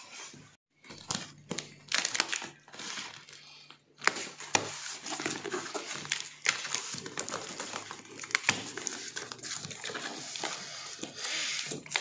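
Cardboard box and packaging being handled and opened: rustling and crinkling with scattered sharp taps and knocks as the flaps are pulled back.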